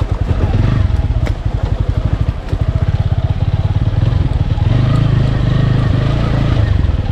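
Single-cylinder motorcycle engine pulling at low revs on an off-road trail, its firing pulses coming through distinctly. It dips briefly a little over two seconds in, then runs steadier and a bit harder and higher through the second half.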